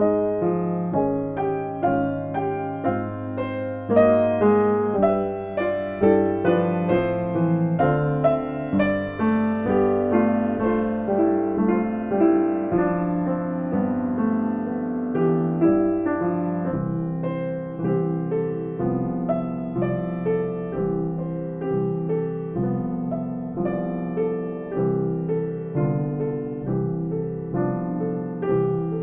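Piano music, many notes struck one after another over a held bass, with the lowest bass notes falling away about 17 seconds in.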